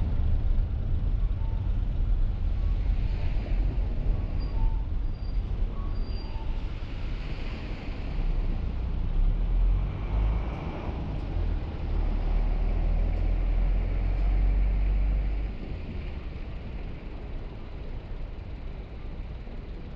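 Car driving along a town street: a steady low rumble of engine and road noise with an even hiss above it, which eases about three-quarters of the way through.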